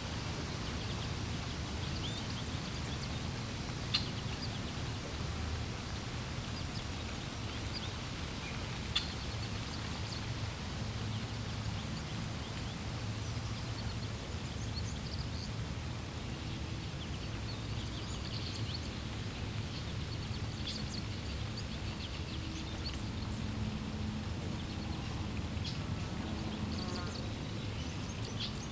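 Water flowing steadily, with birds chirping now and then over it: short sharp chirps about four and nine seconds in, more scattered calls in the second half, and a short lower call near the end.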